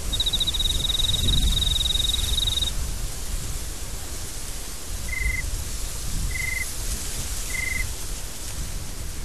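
Desert wind blowing steadily with a low, gusting rumble. Over it, a rapid high-pitched animal trill for about two and a half seconds at the start, then three short, lower buzzing calls a little over a second apart.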